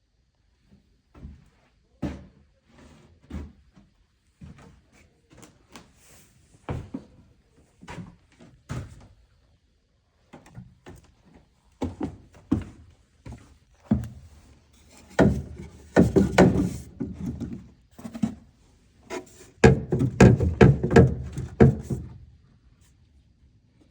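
A series of irregular thuds and knocks, a second or so apart, then two longer bursts of heavier thudding and rumbling near the end.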